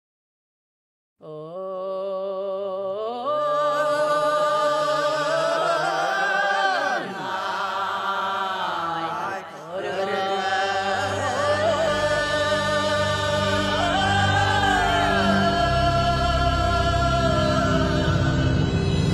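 Music: after about a second of silence, a slow sung melody of long held, wavering notes begins, and a deeper accompaniment joins about halfway.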